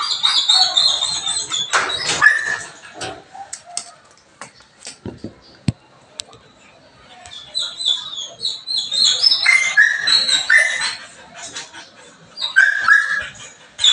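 Belgian Malinois dogs whining and whimpering in their kennel cages, in three bouts of high, broken calls, with scattered short clicks and knocks between them.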